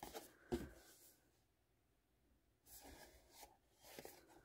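Near silence with faint rubbing and light taps of a cardboard box being turned over in the hands: a couple of soft strokes at the start, then quiet, then faint scraping in the last couple of seconds.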